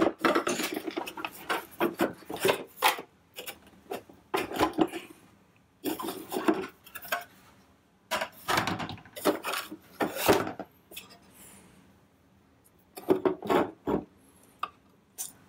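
Hard plastic housing parts of a Toro electric power shovel being handled and pulled apart by hand: irregular clacks, knocks and scraping of plastic on plastic, with a quieter stretch about two thirds of the way through.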